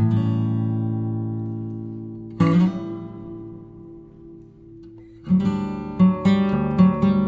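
Background music on acoustic guitar: two strummed chords each left to ring out, then a quicker, steady strummed rhythm from about five seconds in.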